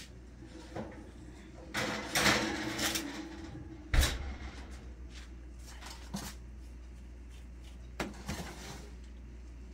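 Kitchen handling noises: a rustling, shuffling stretch of about a second and a half, then a single sharp knock, followed by a few lighter clicks, over a low steady hum.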